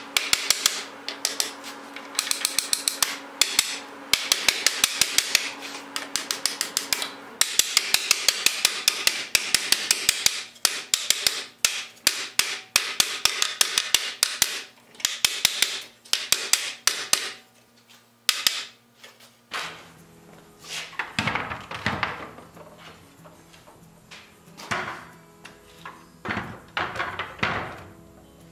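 Steel hammer tapping on a wooden buggy-wheel rim, seating new felloes onto the spokes: quick runs of about five or six sharp taps a second with short pauses between. After a lull about two-thirds of the way in, only a few scattered heavier knocks remain.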